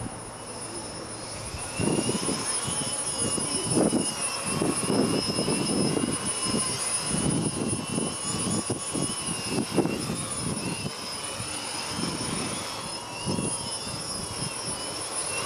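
Quadcopter's electric motors and propellers whining in flight, the pitch wavering up and down as the motor speed changes, with irregular low gusty rumbles over it.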